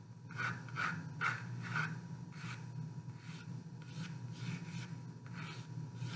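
Pencil scratching on watercolor paper in a series of short strokes, about two a second at first and sparser later, as circles are sketched freehand. A steady low hum runs underneath.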